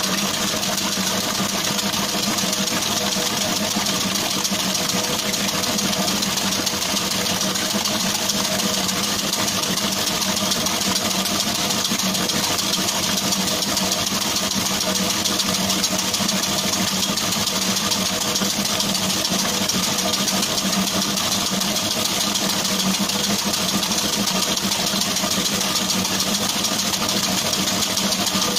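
Commercial planetary mixer running, its wire whip beating eggs for sponge cake batter in a stainless steel bowl: a steady motor hum with a hissing whir of the whisk.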